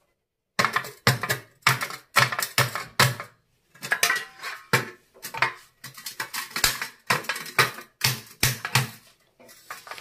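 Hammer knocking on galvanized steel cable trunking, a run of about twenty sharp metallic blows at roughly two a second, each ringing briefly, driving the bent 90-degree section home onto its joint. The blows start just under a second in, after a brief silence.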